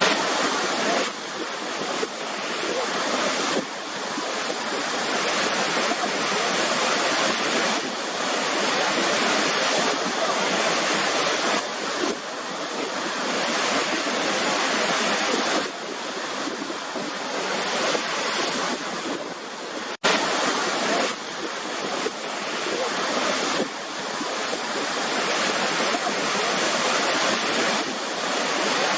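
Waterfall water crashing and rushing in a steady, dense roar of white noise, with sudden small jumps in level and a momentary dropout about twenty seconds in where the recording is spliced.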